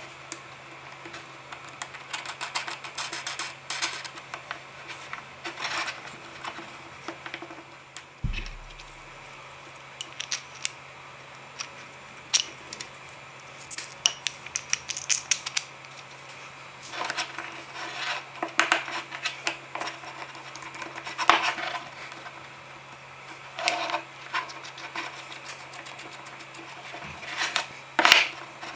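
Irregular light clicks, taps and scrapes of small objects being handled by hand, over a faint steady low hum.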